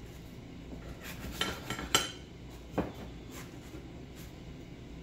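Kitchen knife cutting a grilled quesadilla on a ceramic plate, the blade clicking against the plate a few times, in a cluster about a second and a half in and once more near the three-second mark.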